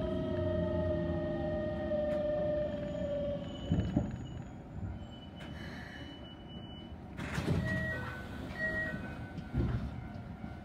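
Electric commuter train's traction motors whining, the whine falling in pitch as the train slows, over a low running rumble with a few clunks from the wheels. In the second half a level-crossing warning bell rings with short alternating tones.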